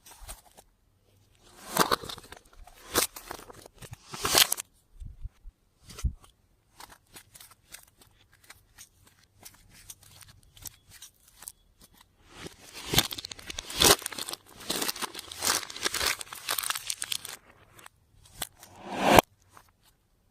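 Clear slime being worked by hand, with bursts of crackling, clicking and tearing sounds as it is stretched and pressed, loudest about two to four seconds in, again from about thirteen to seventeen seconds, and once more near the end.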